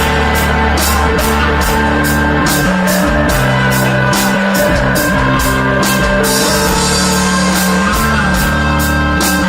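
Live rock band playing: sustained electric guitar and bass notes over drums, with cymbal hits at about three a second.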